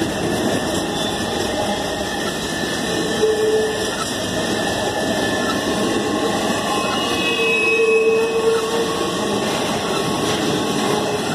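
Intermodal freight train, its flatcars loaded with semi-trailers, rolling past close by: a steady rumble and rush of steel wheels on rail. A couple of brief whining tones rise out of it, about three seconds in and again around eight seconds.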